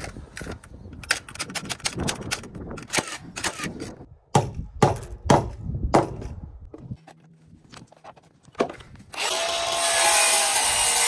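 Nailing and handling of wooden purlin lumber: a string of sharp knocks, with several loud strikes about half a second apart in the middle. About nine seconds in, a power saw starts and runs steadily, cutting wood.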